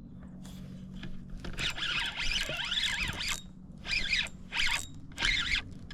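Fishing reel clicking and whirring in repeated bursts of about half a second while a hooked fish is being fought.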